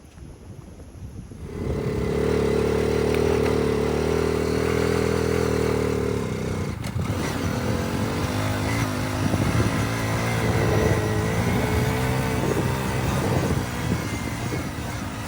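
Small Hero motorcycle's single-cylinder engine running, coming in suddenly about a second and a half in. It holds a steady note for a few seconds, then rises and falls in pitch as the throttle varies.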